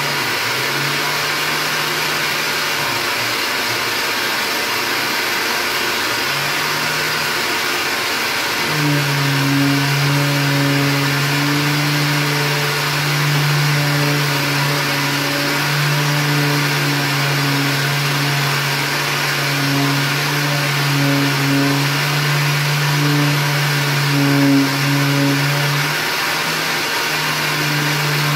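Shop vacuum running steadily as dust extraction for a handheld electric sander. The sander's motor hum comes and goes, running strongest from about nine seconds in, with a brief drop near the end.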